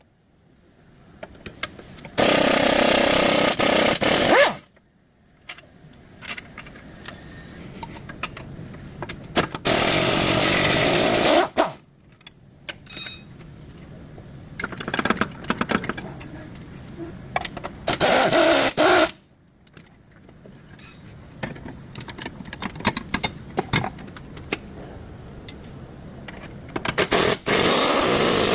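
A power tool run in four short bursts of about one to two seconds each, with clicks and clatter of tools on metal between the bursts.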